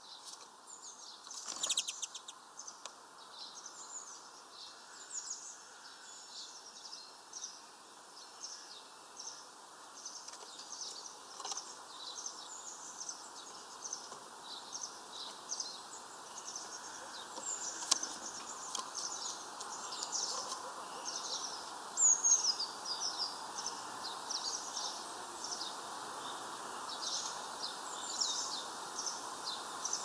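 Small birds chirping over and over in short, high calls, over a steady hum of city background noise. A sharp knock comes about two seconds in.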